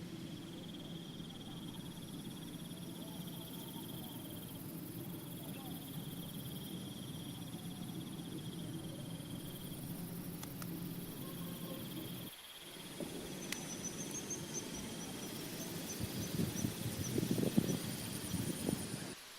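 Insects trilling steadily in the background, a continuous high buzz with a second, higher trill joining in the latter half. Irregular rustling and knocking noises come in over the last few seconds.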